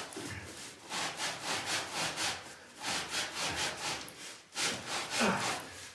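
Rapid back-and-forth scraping strokes on a rusty, brittle sewer pipe in the cellar floor, about four a second, in three short runs with brief pauses between them.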